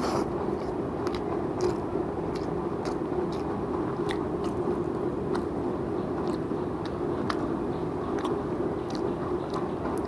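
A person chewing mouthfuls of mutton biryani close to the microphone, with frequent short, wet mouth clicks, over a steady low hum.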